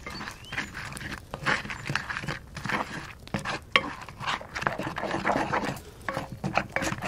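Wooden spatula stirring and scraping pancetta and egg in a Skeppshult cast-iron pan: wet, squelching strokes two or three a second, with the spatula scraping against the iron.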